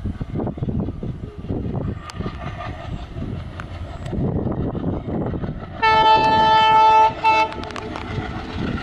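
ALCo-type diesel locomotive working hard with a rough, chugging engine rumble, sounding its horn in one long blast of a little over a second, then a short toot.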